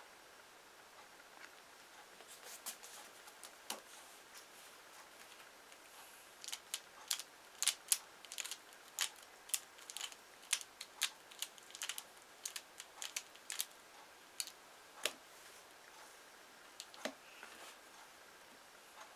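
Plastic pyraminx puzzle being turned by hand: a run of quick, sharp plastic clicks as its layers snap round, several turns close together, thinning out to a few single clicks near the end.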